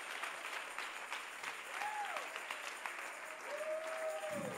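Church congregation applauding: a steady patter of clapping, with a few faint voices calling out over it.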